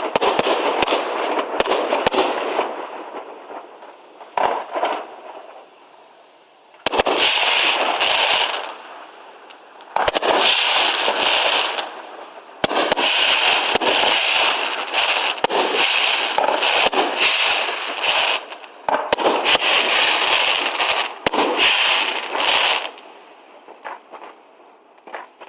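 Aerial fireworks display: sharp bangs of shells bursting, with several stretches of dense crackling a few seconds long. The bangs and crackling die away near the end.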